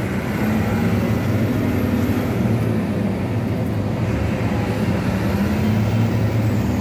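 Diesel truck engine running as the truck drives, heard from inside the cab, a steady drone whose note lifts a little as it pulls. A thin high whine rises and falls twice over it.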